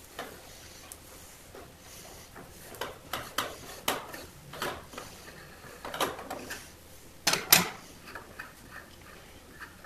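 A 1/8 inch NPT tap being turned by hand to cut threads in a drilled hole in plywood, with a steel tap wrench: a run of short, irregular scraping clicks as it cuts, then two sharp clacks a little over halfway through as the tap wrench is taken off and set down on the metal saw table.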